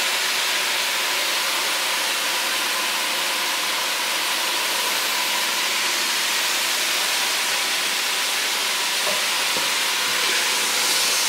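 Diced carrot, celery and onion sizzling as they sauté in a pot: a steady, even frying hiss.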